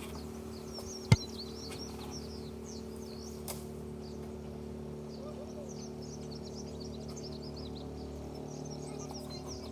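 Small songbirds chirping and twittering over a steady low hum. A single sharp knock comes about a second in.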